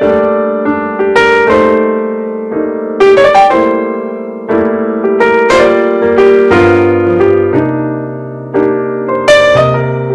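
Background piano music: a slow melody over sustained chords, each note struck and fading.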